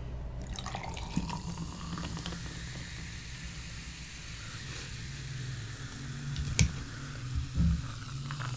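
Watermelon soda poured from a can into a glass jar, a steady fizzing, splashing fill. About six and a half seconds in there is a sharp click, then a low thump.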